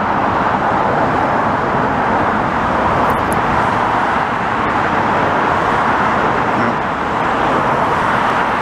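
Steady rushing noise of road traffic passing close by.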